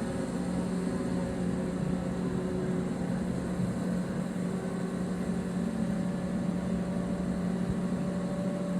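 Steady mechanical hum from the cruise ship's machinery, one constant low pitch with fainter steady tones above it and no change in speed.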